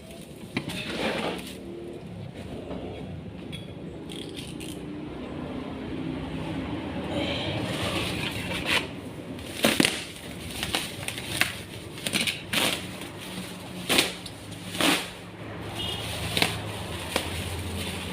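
Packaging being handled and opened: rustling, then a run of sharp, irregular knocks, clicks and scrapes in the second half, over a steady low hum.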